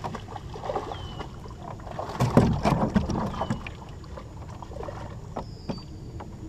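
Irregular knocks, thumps and creaks from a small jon boat's hull as an angler moves about in it while reeling in and landing a bass, with a loud cluster of thumps about two seconds in.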